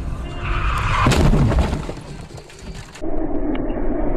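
Car collision heard from inside the dash-cam car: one loud crash of impact about a second in, followed by a lower, steadier noise.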